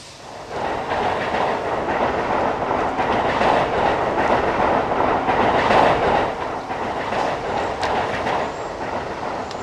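Passenger train running past on its tracks, a loud, steady noise that comes in abruptly about half a second in.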